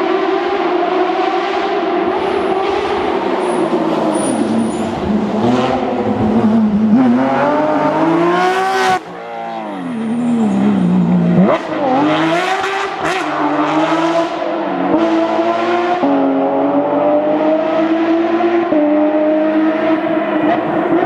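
Porsche 911 GT3 rally car's flat-six engine at high revs under hard driving. The pitch climbs and falls as it accelerates, brakes and shifts, with sharp dips about nine and eleven seconds in, and upshifts that drop the pitch in steps near the end.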